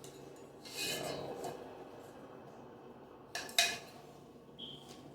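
Parts of a water hose holder being handled during assembly: a rustle about a second in, then two sharp clinks of hard pieces knocking together about three and a half seconds in, and a brief squeak near the end.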